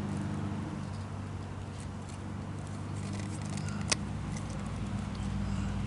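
Small metallic clicks and ticks of pliers gripping and bending a steel cotter pin, with one sharp click about four seconds in, over a steady low hum.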